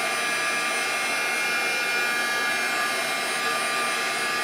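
Heat gun running steadily, its fan blowing hot air with a few steady high tones in the whir, drying wet watercolour paper.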